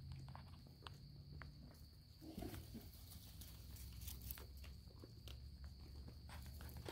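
Faint, scattered footsteps on paved ground under a steady faint high tone and a low hum.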